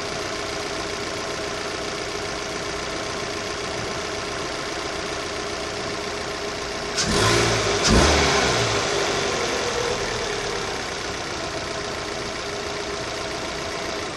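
Opel Z18XER 1.8-litre four-cylinder petrol engine idling steadily, revved up sharply twice about seven seconds in and then settling back to idle; the owner asks whether this engine noise is normal.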